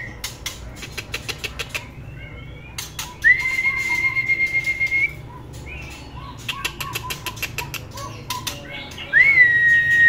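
Young male white-rumped shama in a cage giving runs of quick sharp clicking notes. Two long whistles at a steady pitch, each rising at the start and then held, come about three seconds in and again near the end.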